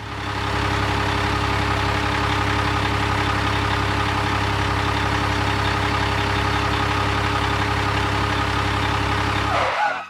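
Heavy vehicle engine running steadily at an even pitch as the loader pushes the stuck dump truck, then cutting off suddenly near the end.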